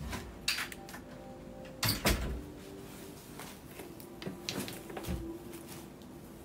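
Handling noise: a series of knocks and clatters as objects are moved about, the loudest a double knock about two seconds in, with smaller knocks over the next few seconds.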